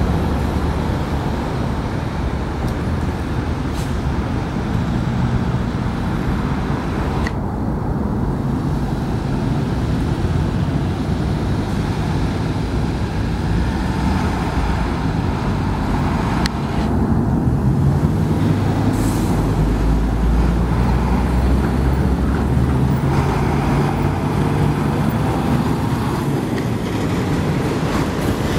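City road traffic dominated by heavy diesel trucks, among them a KamAZ-53228 truck crane, running and moving off with cars passing. The deep engine drone grows louder a little past halfway.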